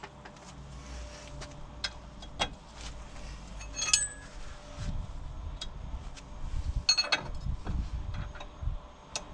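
Metal hand tools clinking and tapping against a steering track rod end: a 6 mm Allen key is fitted into the ball-joint stud and a 22 mm spanner is put on its nylock nut. Scattered sharp clicks, with a few duller handling knocks in the second half.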